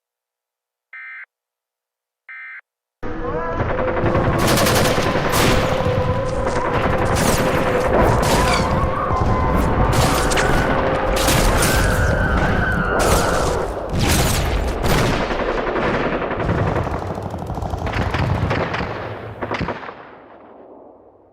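Three short electronic beeps about a second apart, the alert's end-of-message signal. Then a loud battle sound effect begins: rapid gunfire, machine-gun fire and blasts over a steady droning tone, fading out near the end.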